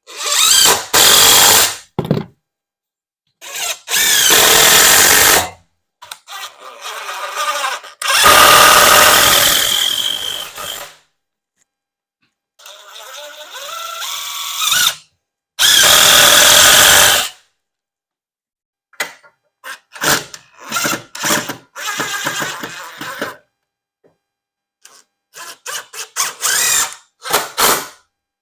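Power tool running in a series of bursts, each starting and stopping sharply: several long runs of two to five seconds, then a quick string of short bursts in the last third, while a board is cut and fixed in as an extra stud.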